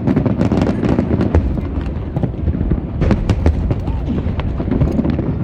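Aerial fireworks going off in quick succession: many sharp cracks and pops over a steady low rumble of bursts.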